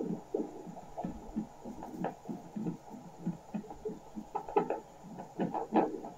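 Elitech Sonotrax Pro fetal Doppler's loudspeaker giving rhythmic whooshing Doppler pulses, about three a second, with a few sharper ones near the end. The repaired probe is picking up a signal cleanly again.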